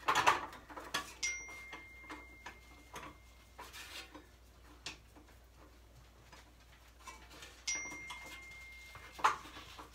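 A phone's text-message alert dinging twice, each a single held high tone about a second and a half long, starting about a second in and again near eight seconds. Between and around the dings come scattered metal knocks and clinks from a wood-stove pipe damper being worked loose by hand, the sharpest at the start and near the end.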